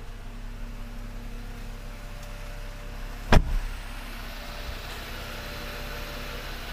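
A Jeep Wrangler JL door shut once with a single sharp thud about three and a half seconds in, over a steady low hum.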